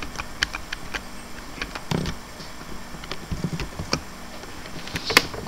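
Sparse, irregular clicks of computer keys and a mouse, over a faint steady hiss.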